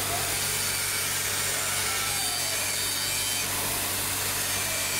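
Handheld angle grinder running steadily, its abrasive disc grinding a metal forging, with a high whine over rough grinding noise.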